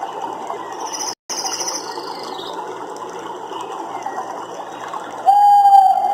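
Dense chorus of calling animals in a nature soundscape, with a brief dropout about a second in and one loud, steady, pitched call held for about a second near the end.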